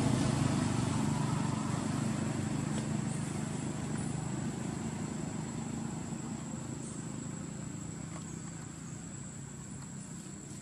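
A vehicle engine's low rumble slowly fading away as it moves off. A steady high-pitched insect buzz runs beneath it.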